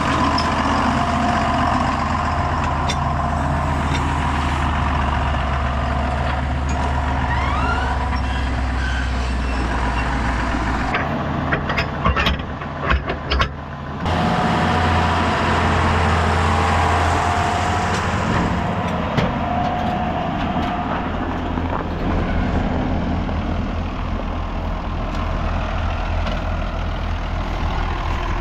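Heavy farm tractor engine running steadily. A few seconds of sharp knocks and clatter interrupt it near the middle.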